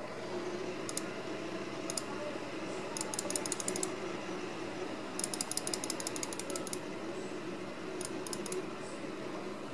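Computer mouse clicking: a few single clicks, then two runs of rapid ratchety ticks about a second long each, over a steady low hum.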